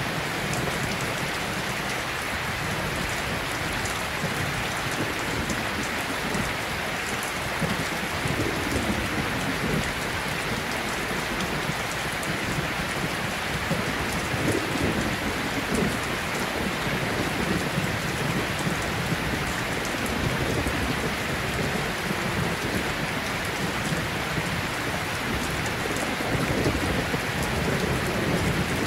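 Steady rain sound: an even hiss of falling rain, with low rumbles swelling a few times.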